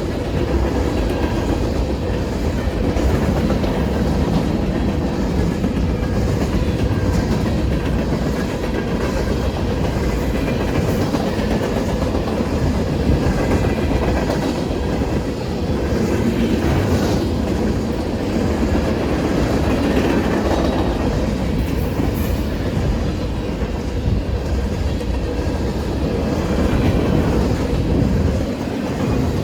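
Manifest freight train's cars rolling steadily past, wheels clicking and clattering over the rails.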